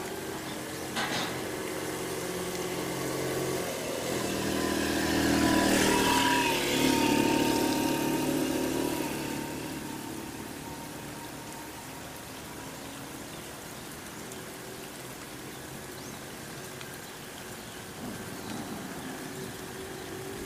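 A motor vehicle's engine passes, growing louder about a quarter of the way in, loudest around the middle, then fading, over steady rain.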